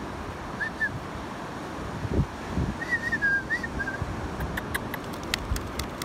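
Wind rumbling on the microphone, with a few low thumps. Over it, short high whistled notes: a pair about half a second in, then a quick run of five or six about three seconds in. A scatter of light high clicks follows near the end.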